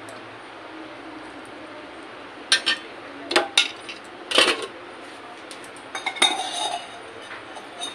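Stainless-steel ladle clinking against a steel bowl and plate as curry is served. There are a handful of sharp clinks, the loudest about four and a half seconds in, and a quicker run of them near the end.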